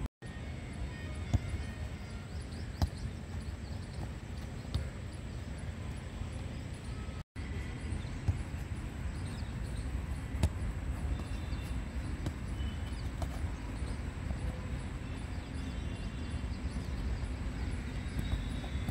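Wind rumbling on the microphone over an open grass field, with a few sharp thuds of a football being kicked, about four in all. The sound drops out briefly twice.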